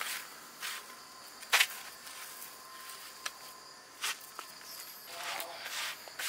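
A handful of short scrapes and rustles of handling, the loudest about one and a half seconds in, over a faint steady background.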